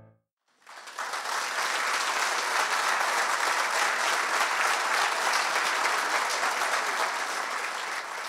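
Audience applause after the final chord of a choir piece, breaking out after about half a second of silence and holding steady.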